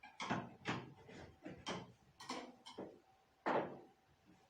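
A painter's tool prying up the top panel of a Samsung dryer: a series of about seven sharp clicks and snaps as the panel is popped loose, the loudest about three and a half seconds in.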